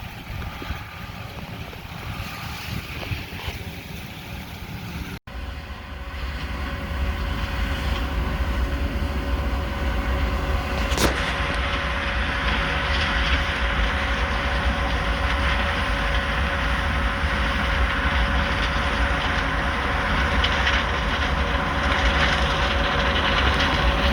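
Combine harvester running while harvesting corn: a steady machine drone with a strong low rumble and a constant hum. About five seconds in it cuts abruptly to a louder, steadier run.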